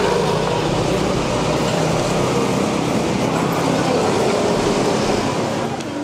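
Steady traffic noise of a city street, an even wash of passing vehicles with no single event standing out.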